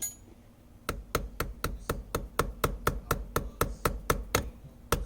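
Rapid, even hammer taps, about four a second, starting about a second in, on the stuck pin in a Subaru WRX's shifter linkage as someone tries to drive the pin out.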